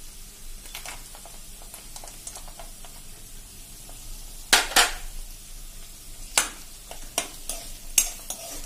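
Oil sizzling in a kadai as cashews, peanuts and green chilli-ginger-garlic paste fry. A utensil clacks and scrapes against the pan while the mix is stirred, with the sharpest knock about four and a half seconds in and a few more near the end.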